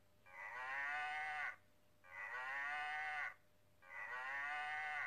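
Electronic sound book's cow button playing a recorded cow mooing, three moos about a second and a quarter long each, with short gaps between them.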